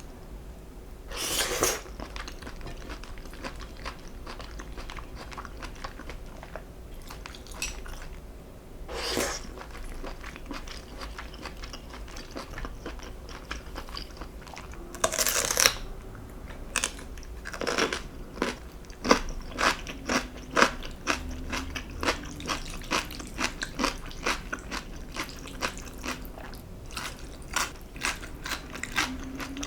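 Close-miked eating: a person chewing and biting, with a few separate louder mouth sounds in the first half. In the second half comes a quick run of crisp crunches, several a second, typical of biting into crunchy food such as radish kimchi or fried dumplings.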